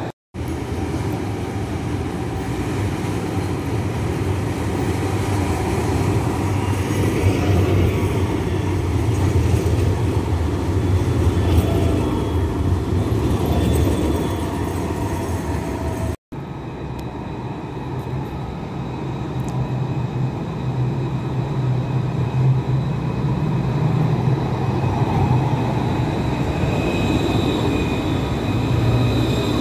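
Tram running on its rails: a steady low rumble and hum, with faint high thin tones in the second half. The sound drops out twice for an instant, just after the start and about halfway through.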